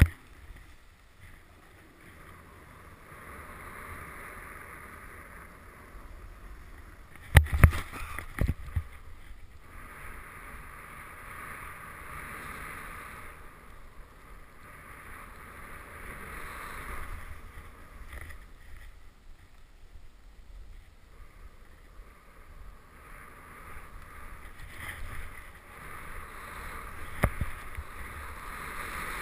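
Snowboard sliding through snow, a hiss that swells and fades as the board turns through groomed snow and fresh powder. A few sharp knocks about a quarter of the way in and one more near the end.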